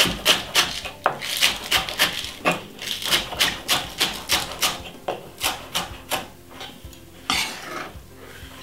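Kitchen knife slicing spring onions on a wooden chopping board: quick, even cuts, each a short knock of the blade on the wood, about three a second. The cutting stops near the end, with one last louder cut.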